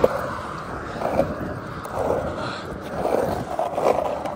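Skateboard wheels rolling over a rough asphalt road shoulder, with a shoe scraping the road in repeated pushes that make the noise swell every second or so.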